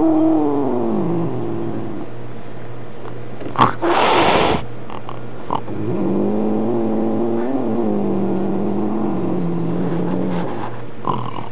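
Maine Coon cat making long, low, drawn-out yowls, a territorial complaint at a visiting kitten: the first call slides down in pitch, then comes a short loud hiss about four seconds in, followed by another long low yowl.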